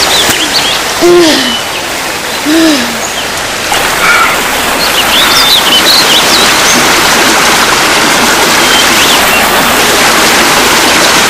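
Steady rushing water, like a stream, with two short arched hoots about a second and two and a half seconds in and a few thin high bird chirps around the middle.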